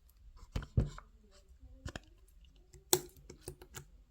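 A handful of separate sharp clicks and taps, about six in four seconds, the loudest about three seconds in, as small objects are handled.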